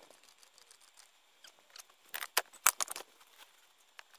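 A quick cluster of sharp knocks and clicks, hard objects being handled, between about two and three seconds in.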